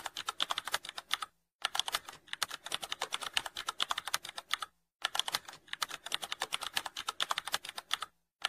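Rapid computer-keyboard typing sound effect: quick clicks in runs of about three seconds, broken by brief pauses roughly every three and a half seconds.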